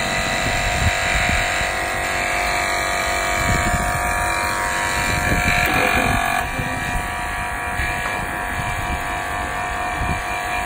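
Wind buffeting the microphone high up on a building, over a steady hum whose tone changes about six seconds in.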